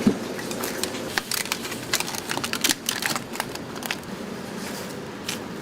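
Kitchen clatter: a quick run of sharp clicks and light knocks from handled utensils and containers, thinning out after about four seconds over a steady background hum.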